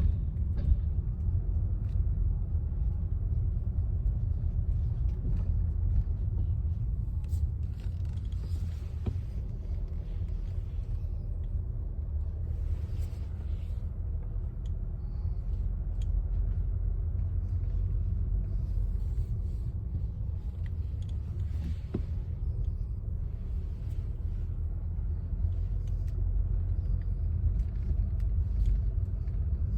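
Steady low road rumble inside a moving 2024 Mitsubishi Outlander, with faint, irregular clicks from the steering wheel over it: the clicking fault the owner is recording.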